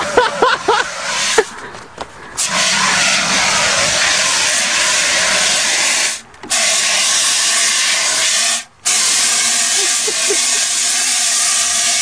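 Fire extinguisher discharging with a loud, steady hiss that starts about two and a half seconds in and breaks off abruptly for a moment twice.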